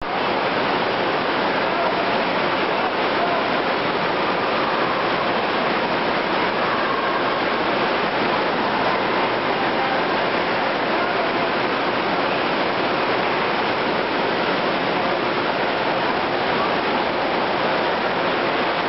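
Heavy water gushing out of the end of a water-slide tube into a shallow splash-out channel: a loud, steady rush.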